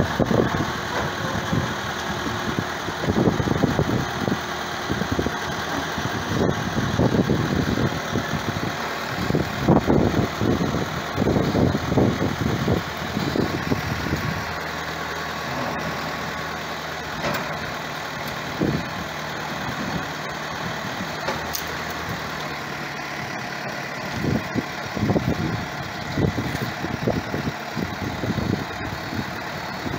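A telehandler's diesel engine running steadily while it tows a yacht on a wheeled boat trolley. Irregular low rumbles come through the first half and again near the end.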